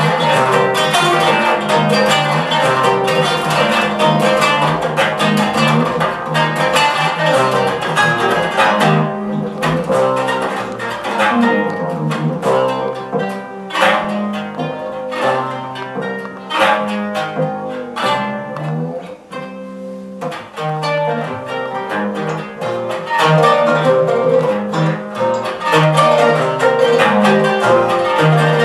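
Live instrumental Tunisian fusion music led by plucked string instruments (kanun, oud and guitar) over bass. It thins to sparser plucked notes twice in the middle and swells back to the full band near the end.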